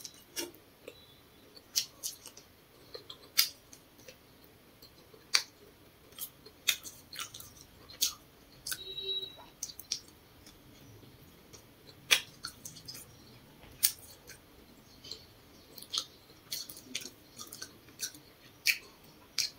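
Close-miked chewing of grilled potato: sharp crunches and wet mouth clicks at an irregular pace, with quiet gaps between them.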